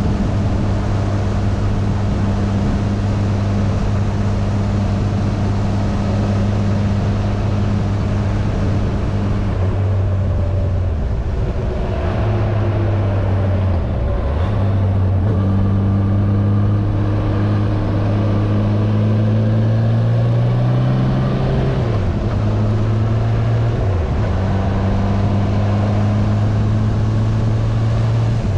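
Yamaha inline-four motorcycle engine running under way. Its pitch holds steady, then dips and climbs several times in the middle before settling again.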